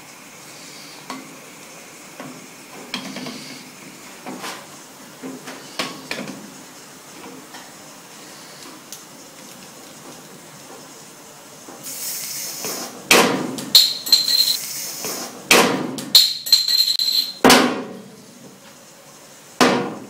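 Plastic TV remote knocking and levering against the crown cap of a glass beer bottle. Light taps and scrapes come first, then a run of loud sharp knocks and clinks in the second half, a couple of them with a brief high metallic ring, and one last loud knock near the end.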